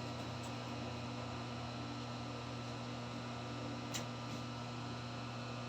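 Steady low hum and hiss of background room noise, with one faint click about four seconds in.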